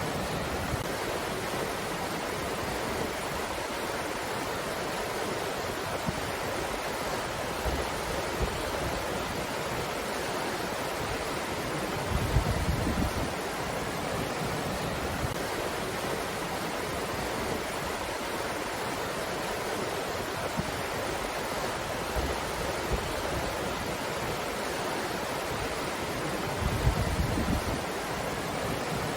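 Wind blowing in a steady, even hiss. Twice, at about 12 seconds and near the end, a brief gust buffets the microphone with a low rumble.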